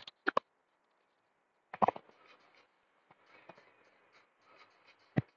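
Several short, sharp knocks and clunks with faint rustling between them: handling noise from objects being moved and knocked about, the loudest about two seconds in and one more near the end.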